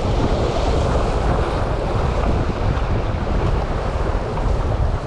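Sea waves washing and breaking against breakwater rocks, with heavy wind rumbling on the microphone.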